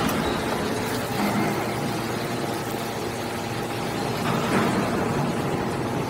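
Hydraulic scrap metal baler running steadily, its hydraulic power unit humming under load as the ram pushes a compressed bale of metal shavings out of the chamber.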